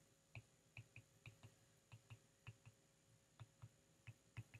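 Faint, irregular clicks of a stylus tapping on a tablet screen while words are handwritten, about three taps a second.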